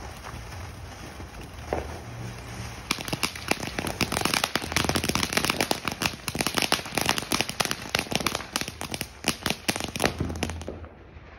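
Ground fountain firework burning: a hissing spray of sparks that breaks into dense, rapid crackling about three seconds in, then dies out near the end.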